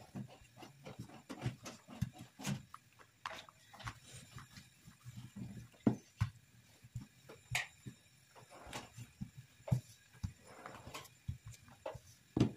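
Wooden rolling pin rolling out bread dough on a smooth work surface: irregular soft knocks and clicks as the pin and hands press and meet the table, with a sharper knock near the end.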